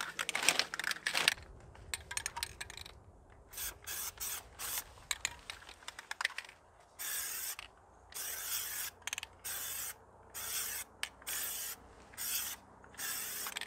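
Aerosol can of Plasti Dip with a trigger spray handle, sprayed in a string of short hissing bursts with brief pauses between them, the bursts getting longer from about halfway through. This is a light misted first coat going onto a wheel.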